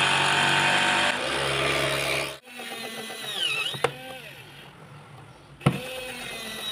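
Electric drill running steadily and boring into a plastic sheet, its sound changing about a second in as the bit bites. It cuts off abruptly, and after that a quieter motor whirs with short dips and rises in pitch, and there are two sharp clicks.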